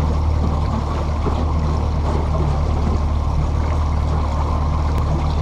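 60-horsepower outboard motor running steadily at trolling speed, a low even drone, with water washing and gurgling against the boat's hull.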